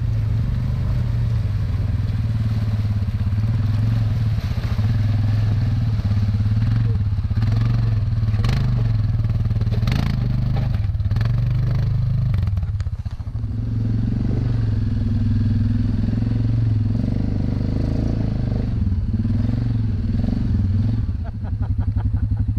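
ATV engine running steadily under load as the quad crawls over rocks, with a few sharp knocks and clatter about eight to eleven seconds in. Near the end a closer engine takes over with an even, rapid pulsing beat.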